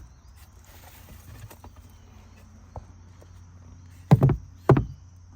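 Garden crates being grabbed and handled: faint scattered clicks and rustling, then two loud hollow knocks about half a second apart near the end.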